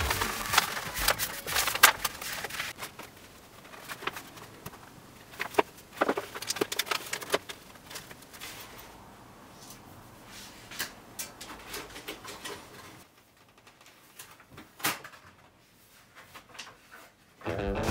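Plastic self-adhesive tile-pattern film sheet crinkling and crackling as it is handled, pressed onto the wall tiles and lifted off again, in scattered irregular crackles and rustles that thin out and go nearly quiet near the end.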